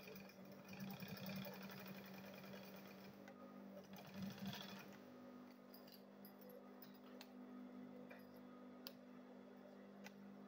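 Faint sewing machine stitching through leather along a zip for about five seconds with a rapid, even rhythm. After that it settles to a steady low hum with a few light clicks.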